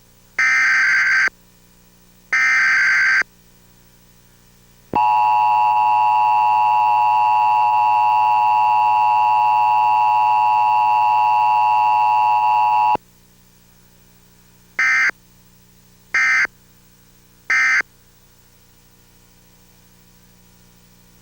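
Emergency Alert System alarm: two short, loud SAME data header bursts, then the steady two-tone attention signal held for about eight seconds and cut off abruptly, then three brief end-of-message data bursts about a second and a half apart.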